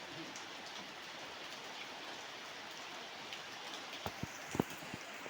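Heavy rain falling steadily, with a few sharp knocks about four seconds in.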